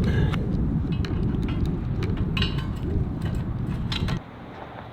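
Low wind rumble on the microphone, with a few light metallic clinks as a steering wheel is fitted onto a bicycle. The rumble cuts off suddenly about four seconds in.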